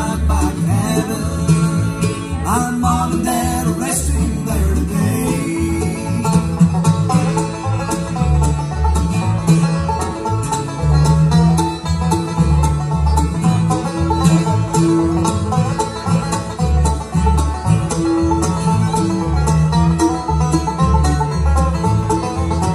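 Bluegrass band playing a song, with a five-string banjo picking quick, even notes over the thump of an upright bass and strummed acoustic guitar, alongside fiddle and mandolin.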